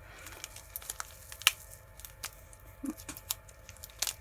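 Hands handling a plastic glitter refill packet: scattered sharp clicks and ticks with light crinkling, one louder click about a second and a half in and another near the end.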